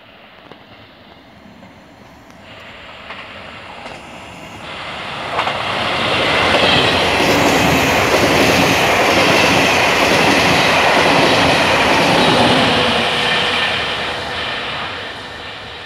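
Regional push-pull train of MD coaches with an E464 electric locomotive pushing at the rear, passing through the station at speed without stopping. The rumble of its wheels on the rails builds from about two seconds in, stays loud and steady for about seven seconds as the coaches and locomotive go by, then fades as the train moves away.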